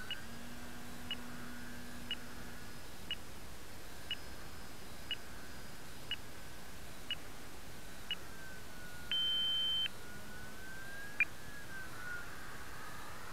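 Motor of a Visionaire radio-controlled plane in flight, a thin whine that slowly rises and falls in pitch. Over it come short electronic beeps about once a second, then a longer beep and one louder single beep near the end.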